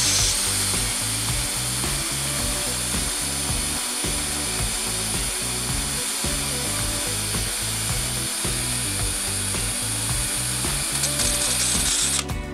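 Airsoft gas being charged into a gas-blowback pistol magazine from a gas can: a steady hiss that cuts off near the end.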